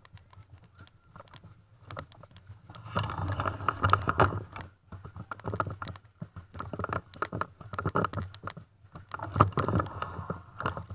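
Airsoft guns firing: two bursts of rapid clicking shots, one about three seconds in and one near the end, with scattered single clicks between.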